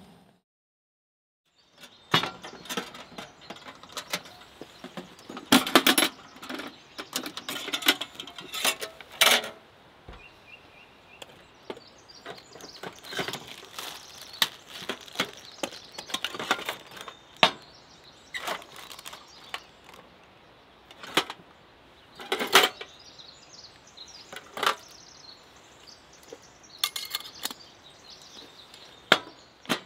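Irregular metallic clinks and knocks of containers and a stovetop moka pot being set into and moved around a steel Stanley Classic lunch box, starting about two seconds in.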